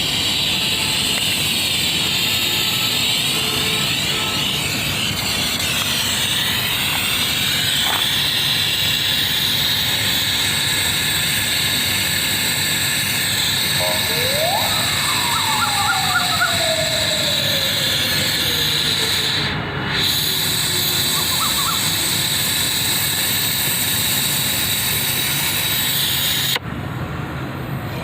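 Gas brazing torch flame hissing steadily while a brazing rod is used to seal a leak in an air conditioner's copper refrigerant line, worn through where two lines rubbed together. The hiss dips briefly about 20 seconds in and cuts off abruptly near the end, with a faint falling whistle in the middle.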